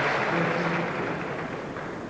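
Tennis crowd applauding after a point, the clapping dying away steadily.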